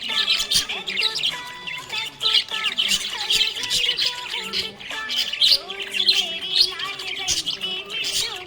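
Budgerigars chirping and chattering busily, a dense stream of quick high chirps and warbles with no pauses.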